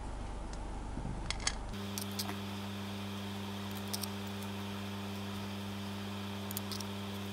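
A steady electrical hum and hiss, with a few faint sharp clicks and taps as a plastic gel pen and small candies are handled. The hum changes about two seconds in.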